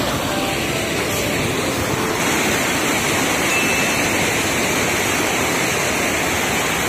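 Loud, steady rush of river water spilling over a check-dam weir and churning into white water below.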